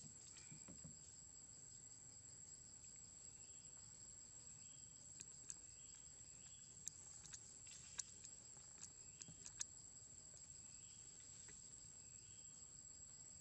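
Faint, steady high-pitched drone of insects in forest, with a short chirp repeating about every second or so and a few scattered sharp clicks.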